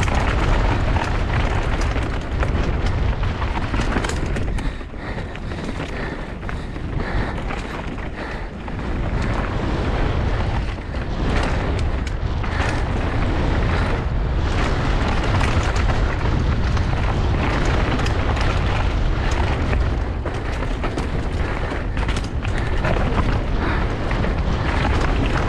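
Wind buffeting an action camera's microphone as a full-suspension trail bike descends a rough downhill course at speed, with continuous tyre rumble and repeated knocks and rattles from the bike over rocks and roots. The run eases briefly around five to nine seconds in, then picks up again.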